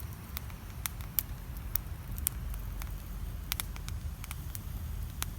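Wood fire crackling: sharp, irregular pops and snaps, a few louder than the rest, over a steady low rumble.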